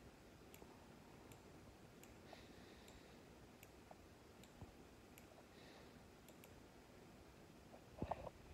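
Faint computer mouse clicks at irregular spacing, about one a second, over quiet room tone, with a louder bump near the end.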